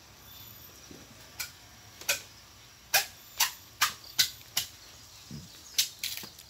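Machete chopping a papaya trunk on a board: a run of sharp knocks, about two a second, getting louder about halfway through.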